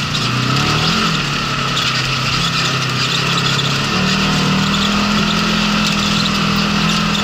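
Polaris RZR side-by-side's engine running while driving along a gravel track. The revs rise and fall briefly about a second in, then step up about four seconds in and hold there. Steady tyre and wind noise runs underneath.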